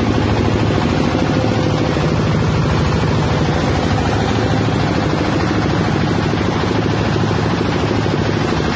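Large peanut-shell grinding mill running steadily: a loud, even mechanical drone with a low hum underneath.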